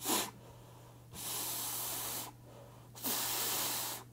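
A person blowing breath out hard through a fabric face mask: a short puff, then two long even exhalations of about a second each.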